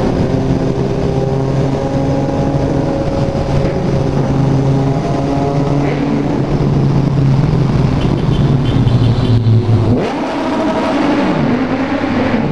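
Motorcycle engine pulling steadily in sixth gear at highway speed, one even note with wind rush, echoing off the walls of a road tunnel. About ten seconds in the throttle closes and the engine note falls away as the bike slows.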